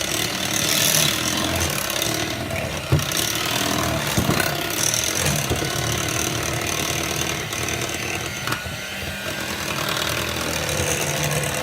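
Electric hand mixer running steadily as its beaters churn pumpkin cake batter in a bowl, with a couple of sharp clicks a few seconds in.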